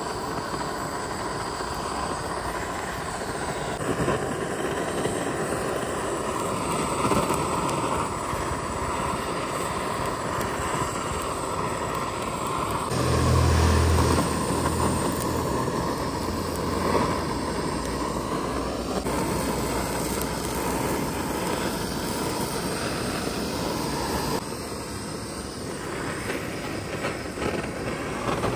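Handheld butane torch on a gas canister burning with a steady hiss as its flame singes the skin of pork hocks. A brief low rumble comes about halfway through.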